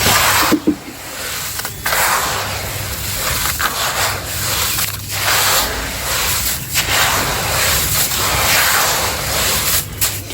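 Gritty sand-and-cement mixture scraping and hissing in repeated strokes of one to two seconds, with short breaks between them.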